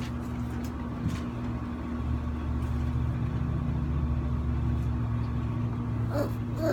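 Window air-conditioner running: a steady hum with a low rumble that grows louder in the middle.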